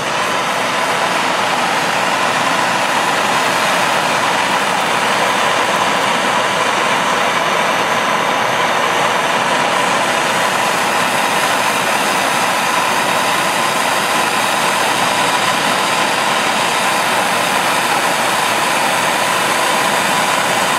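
Gas soldering torch burning with a steady, loud hissing flame, heating a copper pipe fitting so the solder can be drawn into the joint. The flame noise starts abruptly right at the beginning and holds even, with a faint steady tone in it.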